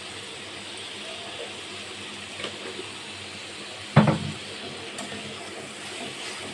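Masala paste sizzling steadily in a steel kadhai while being stirred, with a few light scrapes and one loud metallic knock of the steel ladle against the pan about four seconds in.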